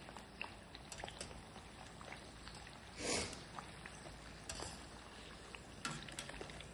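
Papdi deep-frying in hot oil in a steel kadhai: a faint sizzle with many small scattered pops. About three seconds in there is a brief louder swish as the slotted spoon moves through the oil, with smaller ones later.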